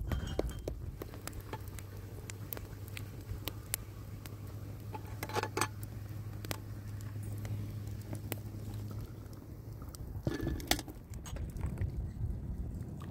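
Wood fire crackling under a steaming kettle: irregular small pops and snaps over a steady low hum. A few louder knocks come about halfway through and again near the end.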